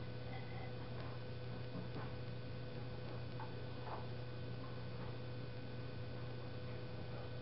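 Steady low electrical hum, with a few faint, short scratches of a pencil sketching on paper.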